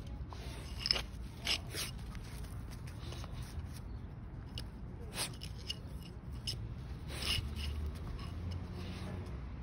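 Puppy gnawing on a bone, with irregular crunches, clicks and scrapes as its teeth work the bone on the dirt.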